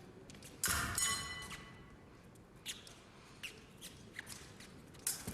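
Épée blades clashing once with a sharp crack and a metallic ring about a second in, then scattered light clicks and taps of blades and fencers' footwork on the piste.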